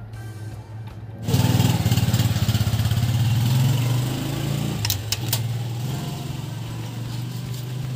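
A small engine running, coming in suddenly about a second in with a low throbbing note, loudest for the next few seconds and then gradually easing off. Background music is heard before it starts.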